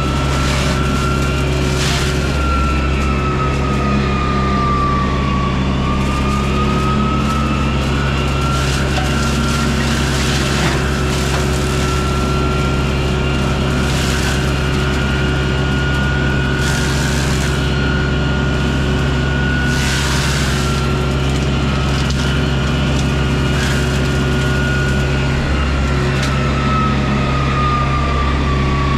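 Deere 60G's diesel engine running steadily under load with the Baumalight hydraulic brush mulcher head whining. The whine sags in pitch and recovers as the drum bites into brush, with scattered short cracks of wood being chewed.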